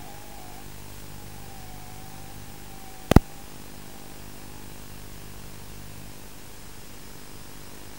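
Steady static hiss with a low hum, as recorded through an FPV drone's analog video link. A faint wavering tone runs under it in the first half, and a single sharp click comes about three seconds in.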